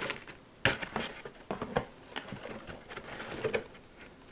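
Plastic packaging bags crinkling and rustling as they are handled in a cardboard box, in irregular short crackles, with a sharper tap about two thirds of a second in.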